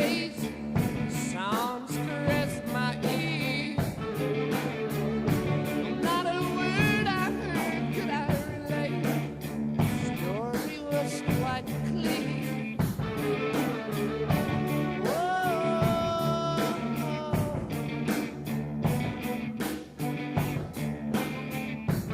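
Rock music with a steady beat, guitar and a sung melody.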